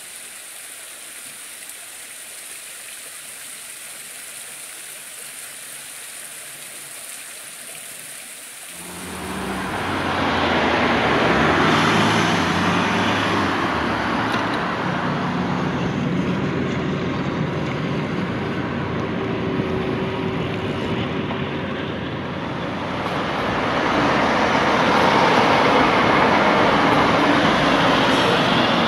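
Water splashing from an overshot wooden water wheel, a steady quiet hiss. About nine seconds in it gives way suddenly to much louder road traffic: cars and lorries passing close by on a busy road, swelling again near the end as a lorry goes past.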